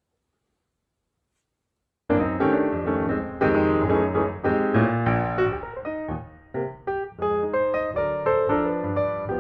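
Silence, then piano music starts suddenly about two seconds in and plays on: a run of distinct notes.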